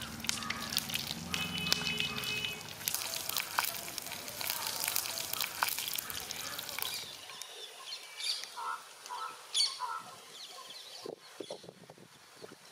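Fish wrapped in banana leaves sizzling and crackling in a hot pan over a wood fire, a steady hiss with many fine crackles. It cuts off about seven seconds in, giving way to quieter short bird chirps and a few clicks.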